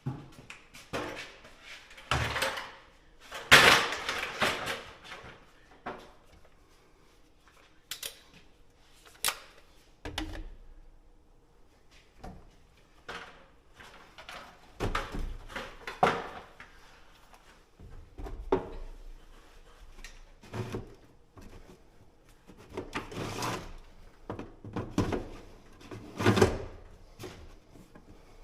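Irregular clanks, knocks and rattles of hand tools and metal parts being handled while parts are taken off a truck engine. The loudest knock comes about three and a half seconds in.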